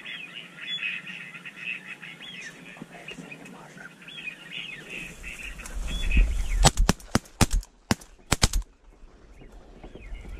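High whistling bird calls for the first few seconds, then a rapid volley of shotgun shots, some eight or nine in about two seconds, fired at ducks on the water.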